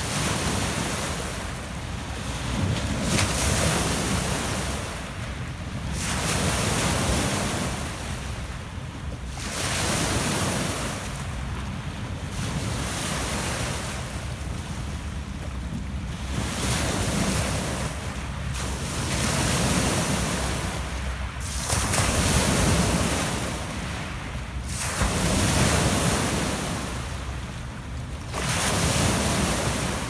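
Small Lake Ontario waves breaking and washing up a pebble beach. A surge of hissing wash comes about every three seconds over a steady low rumble.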